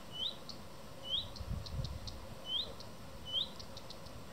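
Small songbird parents calling in alarm near their fledglings: a short rising whistle repeated about once a second, with quick soft ticks in between.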